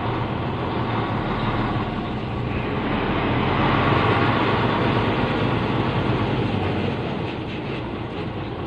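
Truck engine running as the truck creeps forward, heard from inside the cab: a steady drone with a low hum that grows a little louder midway and then eases off.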